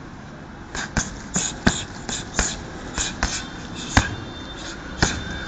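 A quick, irregular run of sharp smacks from gloved punches and kicks landing on a hanging heavy bag, starting about a second in and spacing out near the end.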